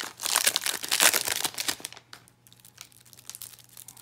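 Foil wrapper of a Magic: The Gathering Jumpstart booster pack crinkling in the hands. It is dense for about two seconds, then dies down to a few light ticks as the cards are handled.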